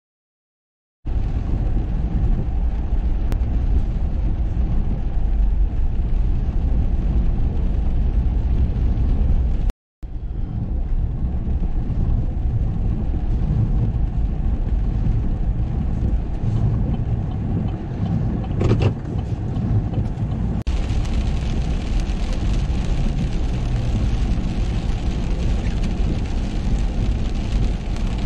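Steady low rumble of road and engine noise from a vehicle driving on a rain-wet highway, heard from inside the cab. It starts about a second in, cuts out for a moment about ten seconds in, and a brighter hiss joins from about twenty seconds in.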